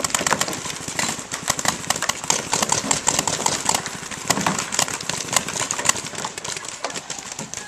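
Paintball markers firing from several players at once, a dense, irregular run of sharp pops overlapping one another.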